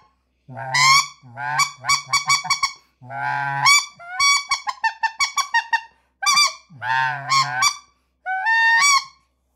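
Corrector combined goose call blown by mouth, sounding a run of goose honks. Several long honks break from a low moan up to a high note, with quick series of short clucking honks between them, in bursts separated by brief pauses.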